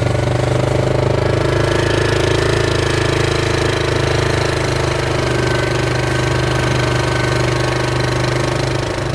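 ATV engine running steadily at travelling speed while towing a sled, heard from the sled behind it.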